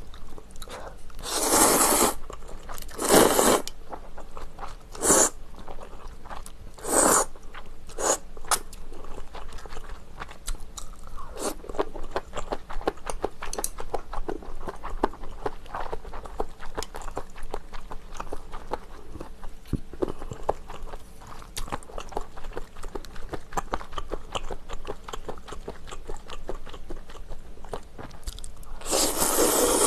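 Close-miked eating of ramen noodles: a few short slurps of noodles in the first several seconds, then steady wet chewing with crunchy bites, and one longer slurp near the end.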